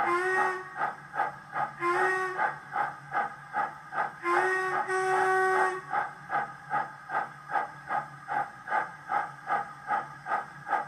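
DCC sound decoder in an O gauge LMS Black Five model locomotive, playing the recorded sound of a steam engine through the model's speaker: a steady beat of exhaust chuffs with two short whistle blasts and then a longer one that changes pitch partway through.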